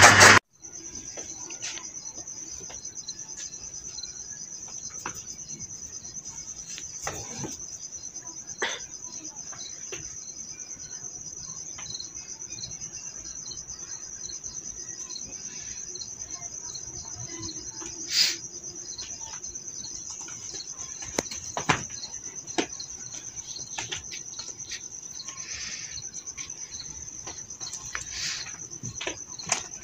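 Crickets chirping in a continuous high, rapidly pulsing trill, with scattered faint clicks and knocks. It opens with a moment of an electric chaff cutter running, which cuts off abruptly about half a second in.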